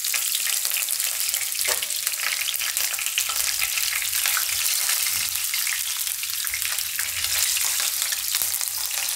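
Chopped garlic and green chillies sizzling in hot oil in a kadai, a steady hiss with many fine crackles, as the tempering (vaghar) for a curry fries.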